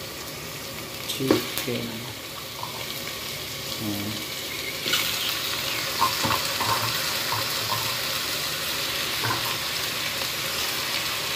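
Raw chicken pieces going into a hot pot of sautéed onions and ginger, sizzling in the oil, with a few short knocks as the pieces are put in. The sizzle grows much louder about five seconds in.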